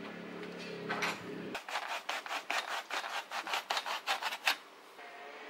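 Quick metallic clicking and rasping, about five a second for some three seconds, as a spanner works the bolt of a small cable clamp on a steel bicycle frame. It follows a steady low hum that cuts off about a second and a half in.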